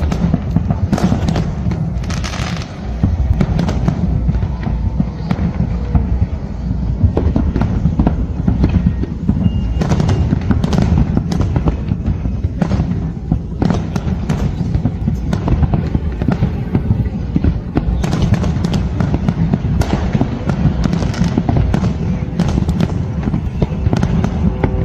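Fireworks display: a continuous barrage of shell bursts, dense sharp bangs and crackling over a constant low booming rumble.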